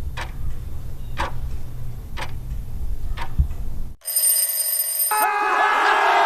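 Clock-ticking sound effect, about one tick a second over a low hum, timing the pause for an answer. About four seconds in it stops and a short high alarm ring sounds, then a crowd starts cheering about five seconds in.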